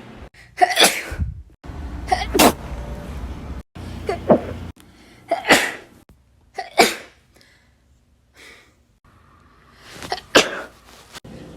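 A series of about six separate human sneezes, one every one to three seconds with a longer gap before the last. Each is a short, sharp burst, some with a brief voiced 'ah' just before. The background changes abruptly between them, as if spliced from different recordings.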